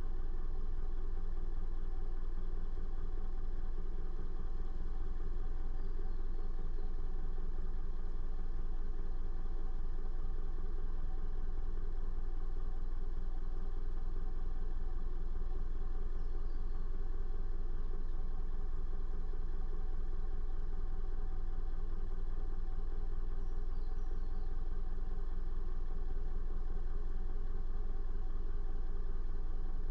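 A car being driven at a steady pace, with a constant low engine and road drone and no changes.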